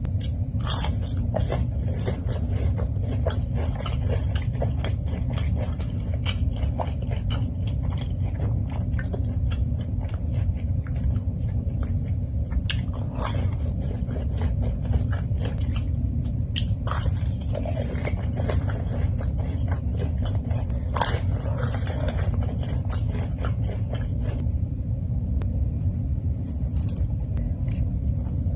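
Close-miked eating: repeated biting, chewing and crunching of food, over a steady low hum.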